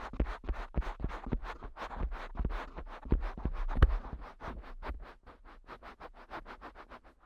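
Fingers tapping and rubbing on the ears of a Neumann KU100 dummy-head microphone, heard close up: a fast run of soft, scratchy strokes, several a second. The strokes grow quieter over the last few seconds.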